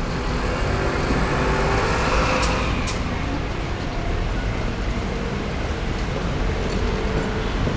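Steady road traffic rumble that swells around two seconds in, as if a vehicle is passing, with two short sharp clicks just after.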